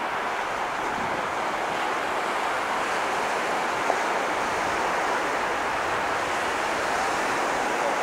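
Surf breaking on a sandy beach: a steady wash of waves, with one brief click about four seconds in.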